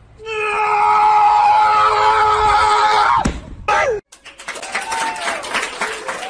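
A vehicle horn sounds one long steady blast of about three seconds and cuts off suddenly. A brief falling cry and voices follow.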